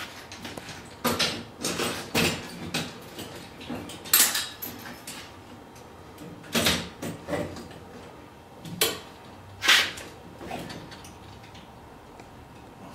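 Knocks and clatters of parts and a panel being handled on an aluminium-framed bike trailer: irregular sharp knocks, the loudest about four and ten seconds in.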